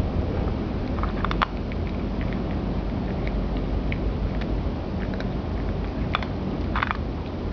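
A cat crunching dry Temptations cat treats, a few crisp irregular crunches about a second apart, over a steady low background hum.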